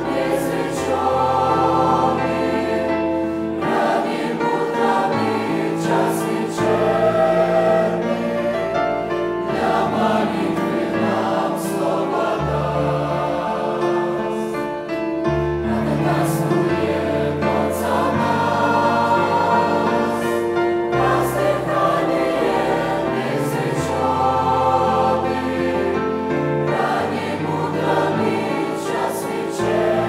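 Mixed choir of women's and men's voices singing a Russian-language hymn in parts, in held chords, with a short break between phrases about halfway through.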